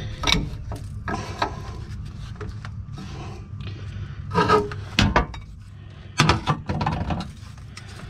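Wrench and metal air-line fittings clicking and knocking as the fittings of a truck air dryer are worked loose, with a few louder knocks in the second half. A steady low hum runs underneath.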